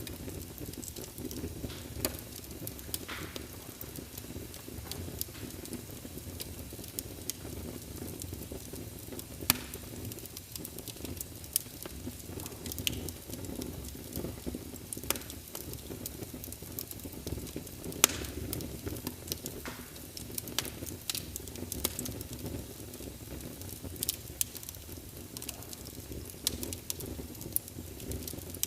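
Birch log fire crackling: a steady low rumble of the flames with irregular sharp pops of the burning wood, the loudest pop about eighteen seconds in.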